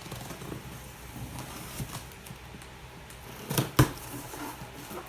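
Hands working at a package being opened: light rustling and scraping of packaging, with two sharp clicks close together about three and a half seconds in.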